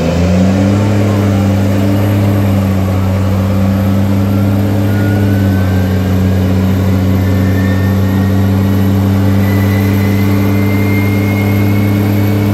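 Parking-lot tram's tractor engine running at a steady cruising speed, a constant low hum with overtones.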